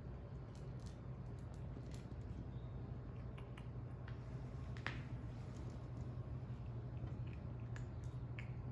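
Calico kitten crunching dry kibble: faint, irregular crisp crunches with one sharper click about halfway through, over a steady low hum.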